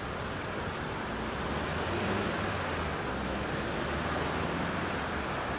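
Steady city street traffic noise: motor vehicles running along the road, with a low engine hum swelling a little around the middle as a vehicle passes.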